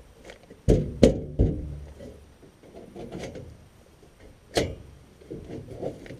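Sheet-metal furnace door panels being fitted back onto the cabinet: three knocks in quick succession about a second in, one more sharp knock past the middle, and rubbing and scraping between them.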